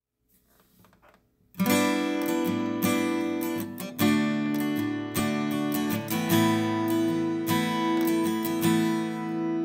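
Acoustic guitar intro music: strummed chords come in about a second and a half in, one struck roughly every second and left to ring.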